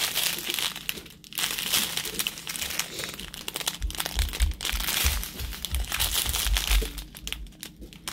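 Small plastic zip-lock bags of resin diamond-painting drills crinkling as hands squeeze and turn them. Dull low thumps come from about four to seven and a half seconds in.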